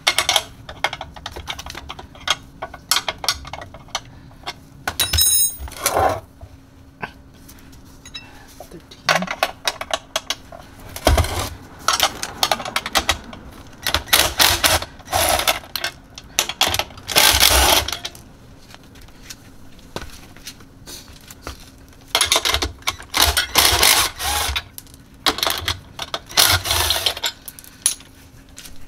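Craftsman cordless drill with a socket bit running in short bursts of about a second, spinning bolts out of a metal battery box. Between the bursts come clinks and clicks of a wrench and loose bolts on metal.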